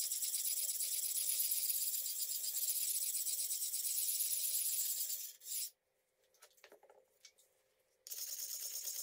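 A round sharpening stone rubbed in quick, continuous strokes along the steel blade of a drawknife, a rasping hiss as the edge is honed. The rubbing stops for about two seconds a little past the middle, with a few light knocks as the knife is turned over, then starts again.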